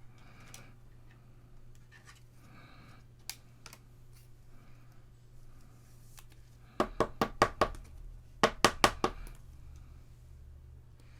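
Two quick runs of sharp taps, about five knocks each and about a second apart, as trading cards are handled on a tabletop.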